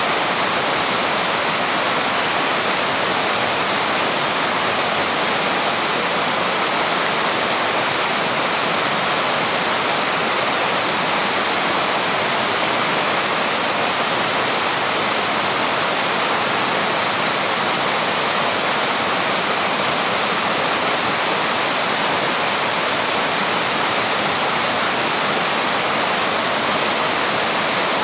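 Waterfall: water pouring steadily over the falls in an even, unbroken rush.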